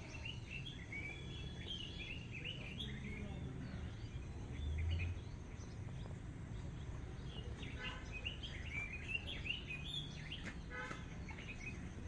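Several birds chirping and twittering, in a busy spell at the start and another in the second half, over a steady low rumble of background noise. A brief low thud about five seconds in.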